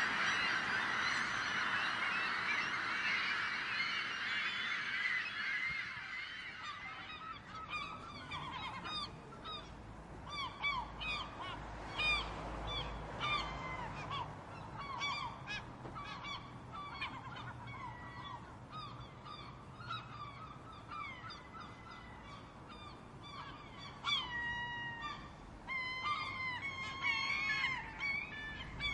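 Gulls calling: a dense din of many overlapping cries at first, thinning after about six seconds into separate, repeated calls, with louder calls again near the end.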